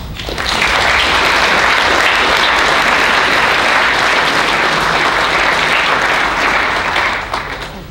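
Audience applauding, building up within the first second, holding steady, and fading away near the end.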